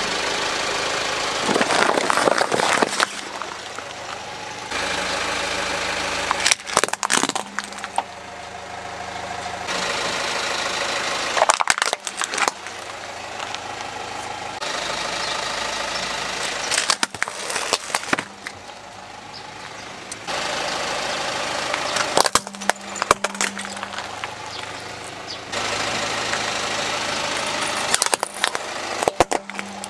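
A car idling while its tyre rolls over and crushes plastic toys and cardboard toy bricks: repeated clusters of sharp cracks and crunches every few seconds over the steady engine, in short clips cut one after another.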